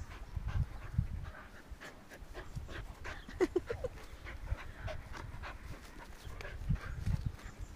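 Dogs panting and scuffling as they play-wrestle, with uneven low thumps of bodies and paws. About three and a half seconds in there is a quick run of four short high whines.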